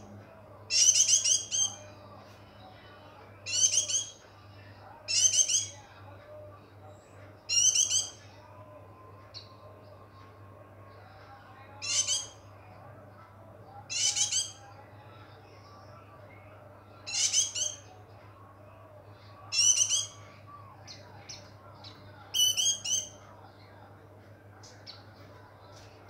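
Caged white-eye (pleci) repeating short, high chirping phrases, each under a second, about every two to three seconds, nine times in all. The owner presents this calling as the bird being in breeding condition (birahi).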